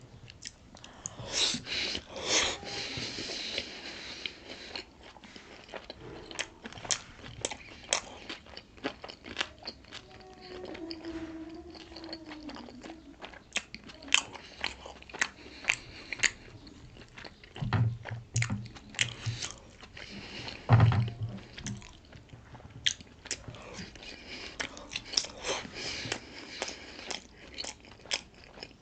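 Close-miked eating of steamed pork momo dumplings: wet chewing and biting with many small mouth clicks and smacks. There are a couple of low thumps about two-thirds of the way through.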